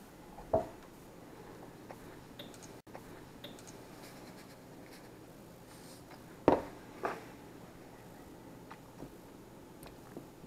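Kitchen handling sounds while fish pieces are dredged in breading: faint scratching and rustling of hands in the bowls, with a few knocks of a bowl set down on the counter, the loudest two close together about six and a half seconds in.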